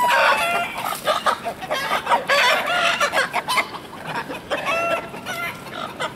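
Domestic chickens clucking and squawking in a rapid string of short calls as they are chased and cornered. A single longer call falling in pitch opens it.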